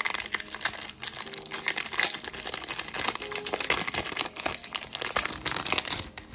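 Foil wrapper of a Pokémon trading-card booster pack crinkling and tearing as it is pulled open by hand: a dense, continuous crackle that stops about six seconds in.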